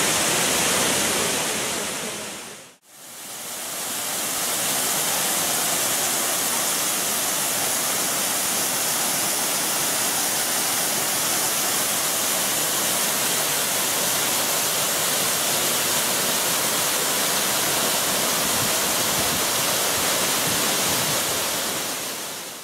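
Steady rush of water falling from a broad curtain of waterfalls spilling over a mossy rock face. The sound fades out and back in about three seconds in, and fades down at the end.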